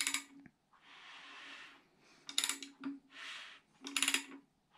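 Ratchet wrench on the crank snout turning a bare 4.6 V8 short block's crankshaft by hand: three bursts of rapid ratchet clicking, each followed by a soft hiss as the rotating assembly turns. The crank is being turned over to check that it clears the windage tray.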